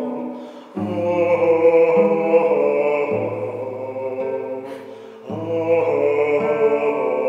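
Solo cello played with the bow: slow, long held notes. The sound fades away twice, about a second in and about five seconds in, and each time a new note starts.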